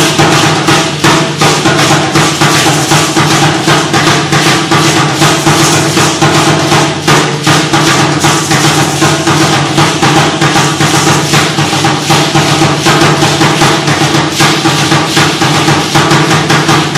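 Tall upright huehuetl drum beaten in a steady, fast beat, with a continuous shaking rattle from the dancers' ankle rattles.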